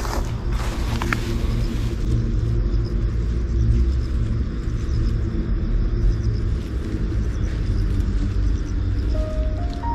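A steady low rumble, with leaves and grass rustling in the first two seconds as a hand pushes through dense vegetation. A few notes of background music come in near the end.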